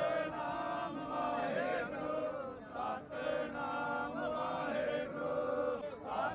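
A group of men singing a chant together in unison, in long held lines, with a short break for breath about three seconds in.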